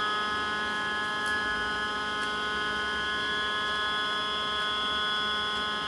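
Stepper motor of a DIY camera slider, driven by a grbl controller, whining at one steady pitch as it moves the camera carriage along the rails at constant speed.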